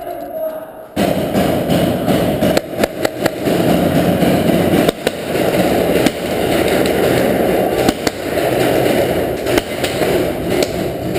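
Heavy paintball fire: a dense, continuous crackle of marker shots and paintballs smacking the wooden barricades, starting suddenly about a second in.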